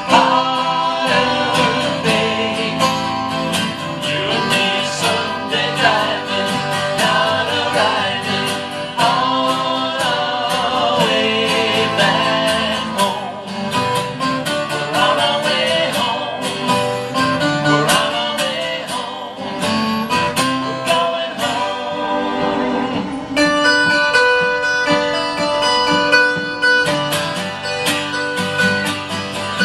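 A song played on acoustic guitar with singing, with a stretch of steadier held notes in the last few seconds.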